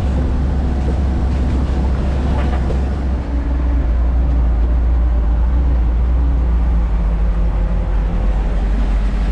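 An old red farm truck's engine running steadily under way, a deep low drone with a brief easing about three seconds in.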